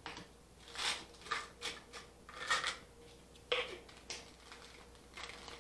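Scattered short rustles and clicks of plastic supplement bottles being handled on a table, about eight irregular bursts over a few seconds.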